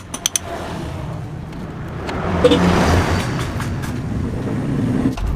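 Motor vehicle noise that swells and eases off, as of a vehicle going by, with a few sharp clicks near the start.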